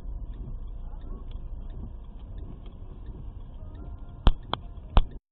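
Low rumble inside a car's cabin as it slows almost to a stop on a snowy road, with a car radio playing faintly underneath. Near the end come three sharp clicks, the last two about half a second apart, louder than everything else, then the sound cuts off.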